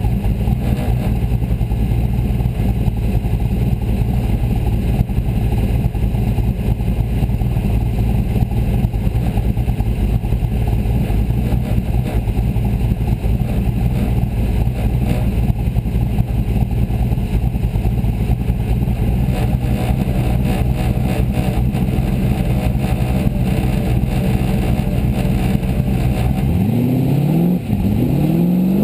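Formula Offroad buggy's engine idling steadily, heard from inside the cockpit. Near the end the revs rise as the car pulls away.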